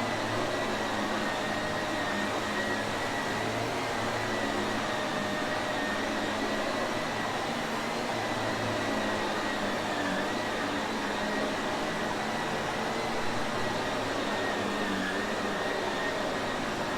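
Shark Navigator upright vacuum cleaner motor running steadily, a constant rushing hum with a faint high whine.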